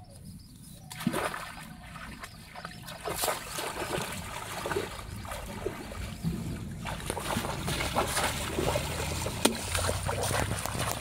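Wading and splashing through shallow muddy paddy water as a bamboo polo fish trap is plunged down into it: irregular splashes that start about a second in.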